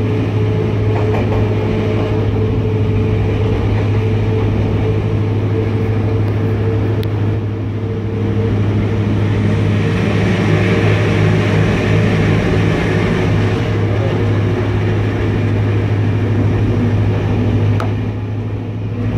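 ZCU-20 diesel-electric locomotive running steadily, heard from inside its cab: a constant low engine hum with wheel and rail rumble over it. The rumble grows brighter for a few seconds about halfway through, as the locomotive runs under a road bridge.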